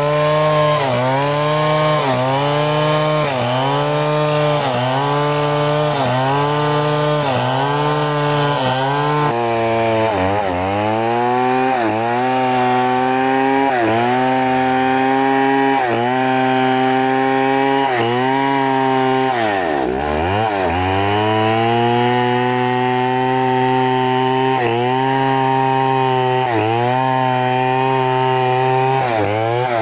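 New West 070 two-stroke chainsaw on a Stihl bar, ripping lengthwise along a log at full throttle under heavy load. The engine pitch sags briefly about once a second as the chain bites. About two-thirds through, the revs drop sharply and then climb back to full speed.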